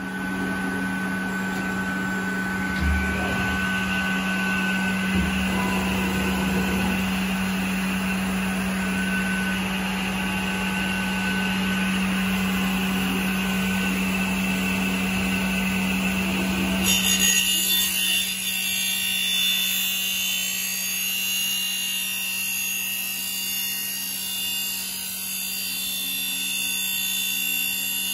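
CNC machine's circular saw blade running and cutting along a Japanese cedar slab: a steady motor hum with a high whine over it. About two-thirds of the way through, the sound abruptly turns harsher and hissier.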